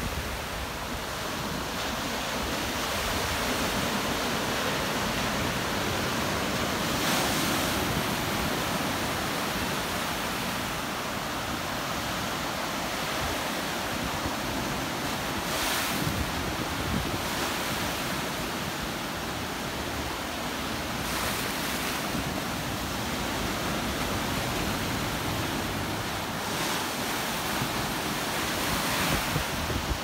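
Small surf breaking and washing up the beach: a steady hiss of foam, swelling briefly several times as waves break, with wind buffeting the microphone.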